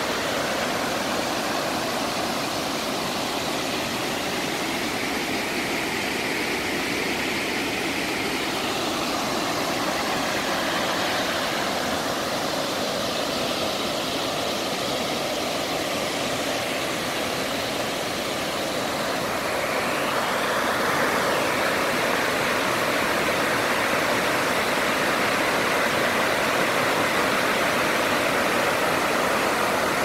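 Steady rushing of water pouring over small river waterfalls and cascades, a constant full noise that grows a little louder about two-thirds of the way through.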